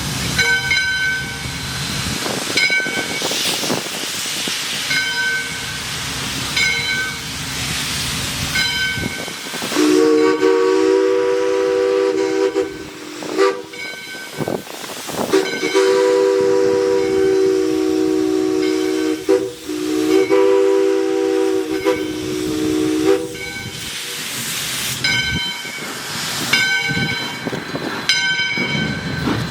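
Steam locomotive (ALCO 2-8-2 Mikado #40) with steam hissing and its bell ringing about once a second. From about a third of the way in, its multi-tone steam whistle sounds in several long blasts with short breaks, and the bell carries on after the whistle stops near the end.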